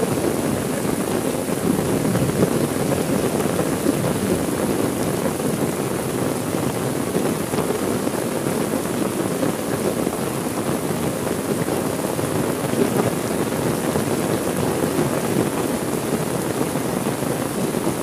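Heavy rain falling steadily, an even, unbroken rush of noise.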